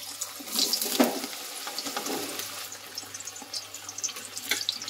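Raw banana slices dropped into hot oil in a steel kadai, the oil sizzling and crackling with many small pops, and a knock about a second in as the slices go in.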